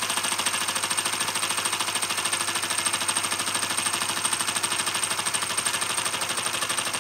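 Model rocker-beam Stirling engine running at speed, its moving parts clattering in a rapid, even rhythm.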